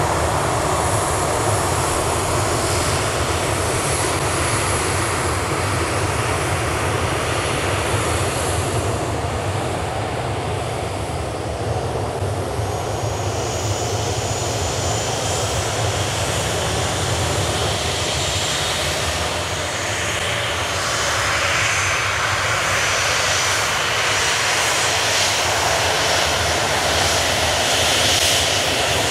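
Boeing 737-800's CFM56-7B turbofan engines running at taxi power as the jet rolls slowly past: a steady jet rumble, with a thin high whine coming in about halfway through.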